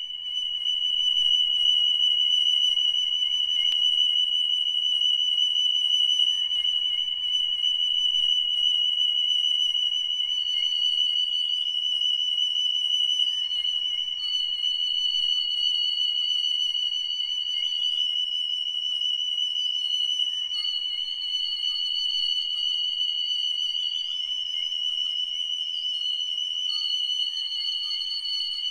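A sustained high electronic tone, steady in pitch and unbroken throughout. About ten seconds in, a second, higher tone joins it, wavering and stepping up and down.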